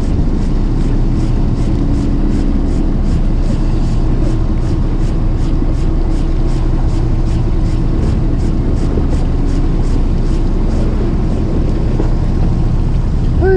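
Fishing boat's engine running steadily, a constant low hum with a little noise over it.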